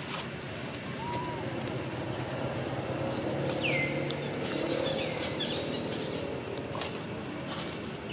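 A few short high animal calls, each sweeping down in pitch and then levelling off, about a second apart in the middle, with a lower arched call near the start. They sit over a steady low background rumble with scattered small clicks.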